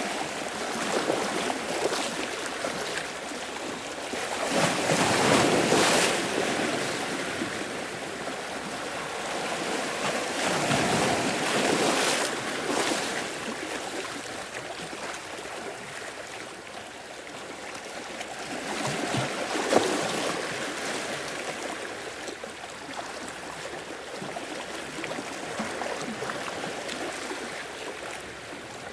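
Sea waves breaking and washing in a rocky shore cave, a continuous rush that swells with each wave, loudest about five seconds in and again around twelve and twenty seconds.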